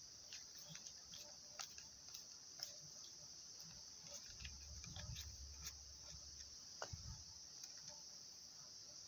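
Near silence: faint, scattered small clicks of a screwdriver turning a screw into a motorcycle fuel pump assembly, with a couple of soft handling thuds around the middle, over a faint steady high-pitched hiss.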